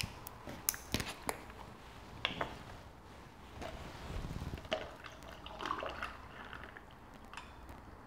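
Plastic screw cap of a sports-drink bottle twisted open with a quick run of sharp clicks, then a plastic cup of ice and the bottle handled: ice shifting in the cup, liquid sloshing and a few more clicks.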